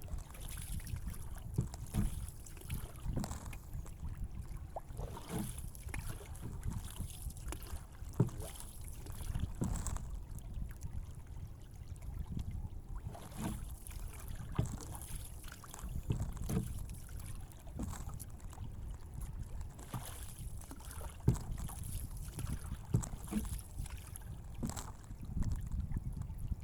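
Outdoor ambience of water sloshing and lapping, with irregular small knocks and splashes, over a low wind rumble on the microphone and a faint steady high hiss.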